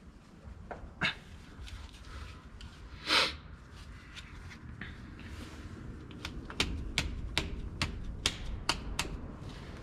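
Hand tools clicking on metal engine parts. There is a single sharp click about a second in and a short scraping hiss around three seconds in. Then comes a run of sharp clicks, about three a second, through the second half.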